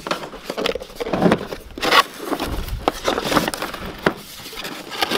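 Cardboard box being opened by hand: lid flaps pulled and torn open, with irregular scratchy crackling and scraping of cardboard and a dull bump about halfway through.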